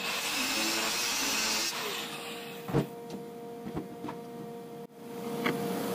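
Electric angle grinder with a cutting wheel grinding on a steel rear axle housing for the first couple of seconds, then falling quieter, with a steady hum and two sharp metal knocks.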